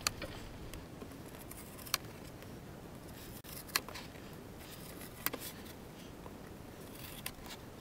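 Small hand cutter scoring the top paper face of foam core board along a steel combination square, with a few sharp clicks spaced roughly two seconds apart over soft cutting noise.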